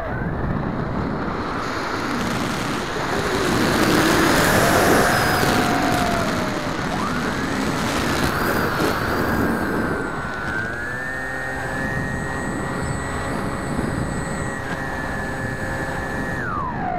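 Brushless electric motor and pusher propeller of a Bixler 2 foam RC plane whining, its pitch rising and falling with the throttle, over wind rushing past the onboard camera. The whine holds steady for several seconds, then falls away near the end as the throttle is cut low over the grass.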